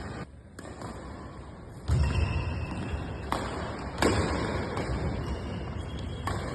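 Badminton play in an indoor hall: a few sharp racket strikes on the shuttlecock, about two, three, four and six seconds in, over a steady echoing hall noise that grows louder after the first strike.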